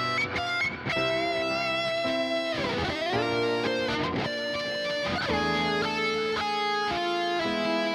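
Electric guitar playing a lead melody of held notes, with several sliding pitch bends.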